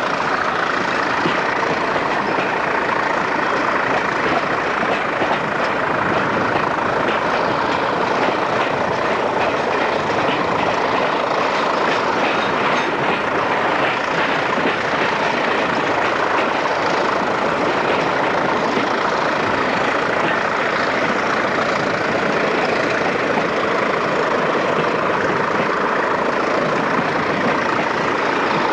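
A train running, heard from an open carriage window: a steady rush of wind and running noise, with the two English Electric Class 20 diesel locomotives working at the head.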